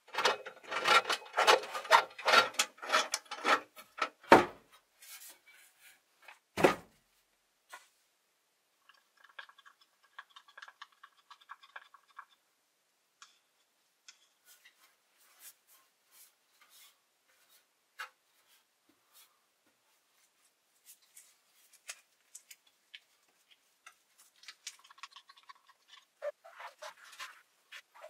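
Quick, repeated rubbing strokes over a carbon fiber wing's surface, then a single sharp knock. After that comes the fainter scrape of a wooden stick stirring epoxy resin and hardener in a plastic cup, with light handling and scraping sounds near the end.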